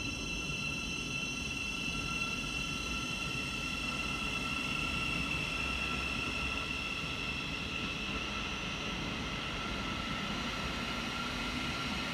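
Class 717 electric multiple unit pulling out of the station, its electric traction equipment giving a steady whine of several high tones over a low rumble.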